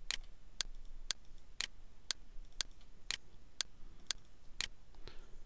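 Steady, even ticking at about two ticks a second, with a faint low hum underneath.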